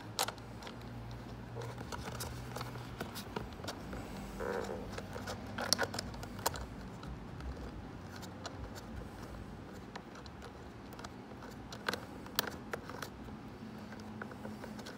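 Small clicks and scrapes of hands handling plastic bumper parts while fitting a washer and screw into a mounting hole by hand, over a faint low hum.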